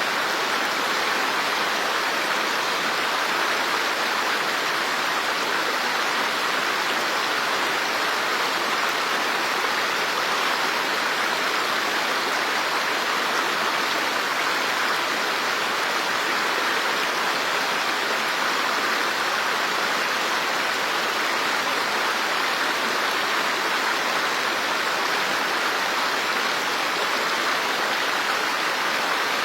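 Running water: a steady, even rush with no separate drops or splashes.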